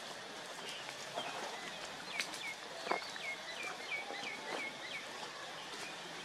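Outdoor ambience with a run of short, high chirps, each falling in pitch, repeated about three times a second for a few seconds, with a few faint ticks in the leaf litter.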